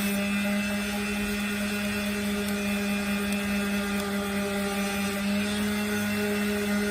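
Electric power sander running steadily with 80-grit paper: a constant motor hum with a gritty rasp over it.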